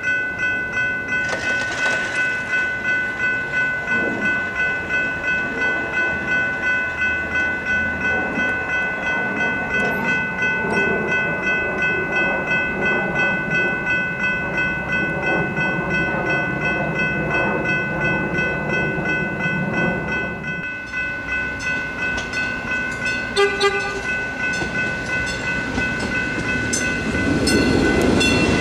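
A railroad grade-crossing bell rings steadily at about two strokes a second while the crossing gates come down. About 23 seconds in, a train horn gives a short blast. Near the end, a Stadler GTW diesel railcar rumbles into the crossing.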